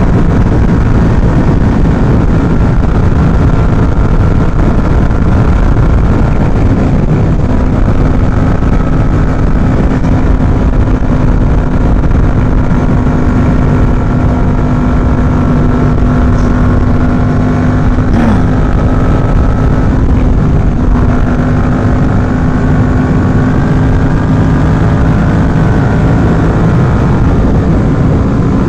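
Yamaha MT-07 parallel-twin engine running steadily at highway speed in sixth gear, its drone mixed with heavy wind rush on the microphone.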